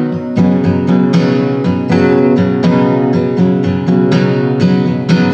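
Acoustic guitar strummed in a steady rhythm, about four strokes a second, playing chords between sung lines.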